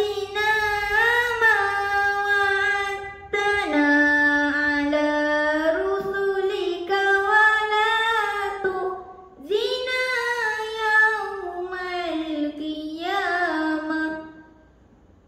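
A young girl reciting the Quran in the melodic tilawah style, with long drawn-out notes that bend and waver in ornamented runs. It comes in three long phrases with short breaths between and ends about fourteen seconds in.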